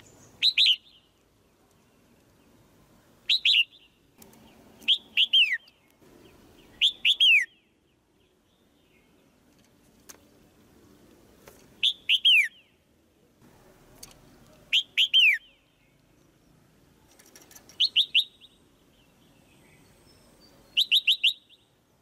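Female red-whiskered bulbul giving sharp chirping calls, each burst two to four quick notes slurring downward, repeated every two to three seconds. These are the female calls used to stir a male bulbul into singing harder.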